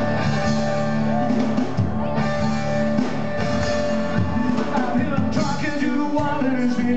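Live rock band playing, with electric guitar and drums, and a man singing into the microphone.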